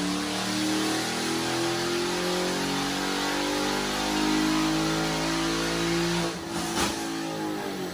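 A car engine running with its revs rising and falling, cutting off about six and a half seconds in, followed by a short rushing noise.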